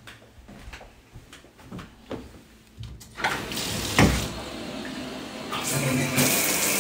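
Bathtub faucet turned on: a sharp knock about four seconds in, then water rushing steadily from the tub spout, growing stronger and fuller near the end as it flows freely. A few light clicks and knocks before it.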